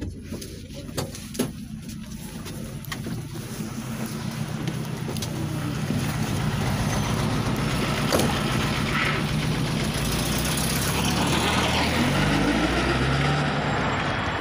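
A few sharp knocks and clicks inside a minibus as passengers get off, then steady outdoor street and traffic noise. Near the end a nearby vehicle's engine revs up as it pulls away.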